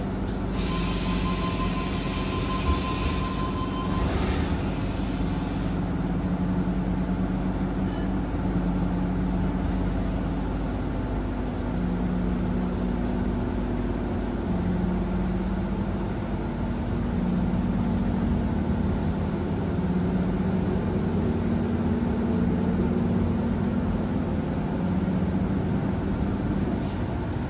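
Tangara electric train heard from inside the carriage as it pulls away and gathers speed: a steady running rumble under a motor hum whose pitch steps up in stages. A hiss sounds for the first few seconds.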